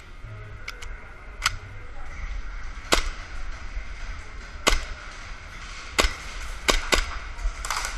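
Airsoft guns firing scattered single shots: sharp cracks at irregular intervals, a few pairs close together and a quick cluster near the end.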